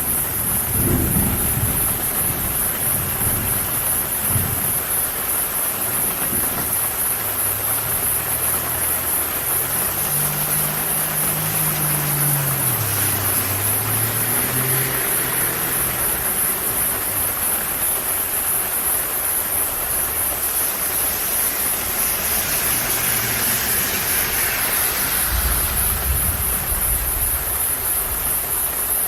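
Steady rain falling, with low rolls of thunder dying away over the first few seconds and another low rumble near the end. Midway a car passes, its engine note dipping as it goes by, followed by a swell of tyre hiss on the wet road.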